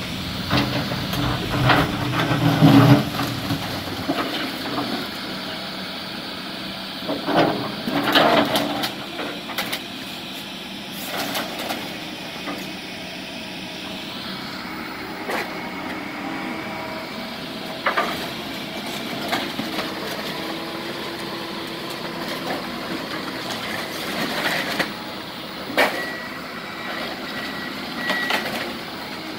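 Heavy demolition machinery running steadily, with scattered knocks and clatter of debris being moved. The loudest crashes come about two to three seconds in and again about eight seconds in.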